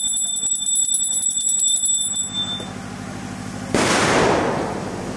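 A high-pitched bell ringing with rapid, even strikes, stopping after about two and a half seconds. About four seconds in, a single loud firecracker bang sounds and fades quickly.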